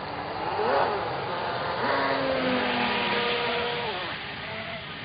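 RC boat's motor running at speed. Its pitch rises, holds a steady high whine for about two seconds, then falls off about four seconds in as the throttle eases.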